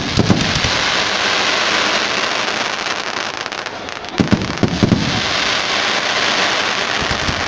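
Aerial fireworks bursting: a quick run of bangs right at the start and again about four seconds in, each followed by a long, dense crackling as the glittering shells burn out.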